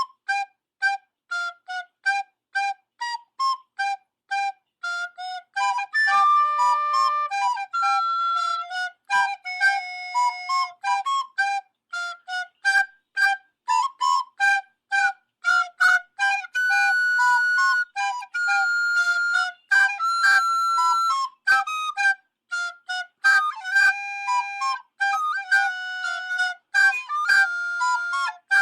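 Music: a high, flute-like melody of quick, short detached notes, a few each second, with a few longer held notes along the way.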